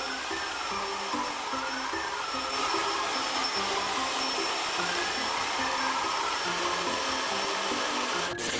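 Router spindle on a mostly printed CNC machine running at speed while its bit engraves into MDF: a steady high-pitched motor whine over a rushing cutting noise. The noise cuts off abruptly near the end.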